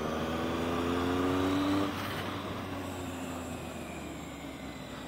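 Motorcycle engine heard from the rider's own bike on a track, pitch climbing steadily under acceleration until the throttle is closed about two seconds in, then running quieter and fading as the bike slows, over a haze of wind rush.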